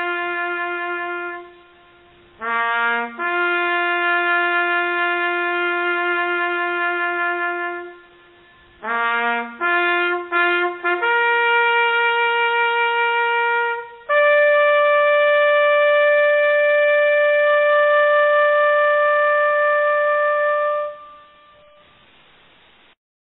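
A solo brass horn sounding a slow bugle call: long held notes broken by a few short quick ones, ending on a long high note that fades out near the end.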